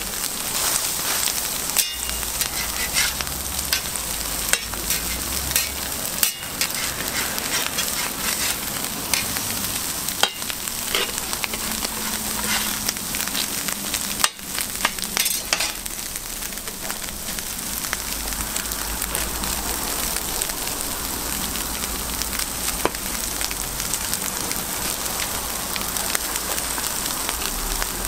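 Egg patties with shredded cabbage and ham sizzling steadily on a flat steel griddle. A metal spatula scrapes and taps against the griddle a few times.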